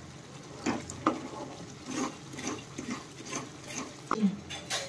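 Stirring and scraping a tomato and gram-flour masala in a cooking pan: irregular scrapes and light taps of the spoon against the pan.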